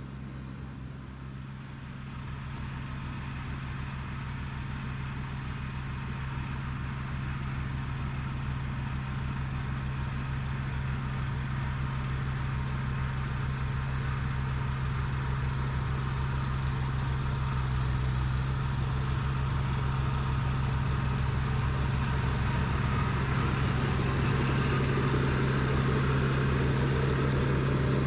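Kubota BX2230D compact tractor's three-cylinder diesel engine running steadily, growing gradually louder.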